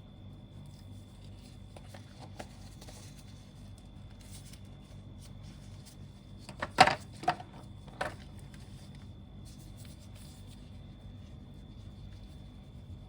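Light scraping and rubbing as pigment paste is stirred into epoxy resin in a cup, with a quick cluster of sharp knocks about seven seconds in and one more a second later.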